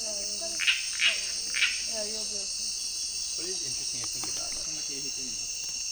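Night chorus of Amazon rainforest insects, a steady, dense high-pitched trilling, with three short, louder chirps about a second in.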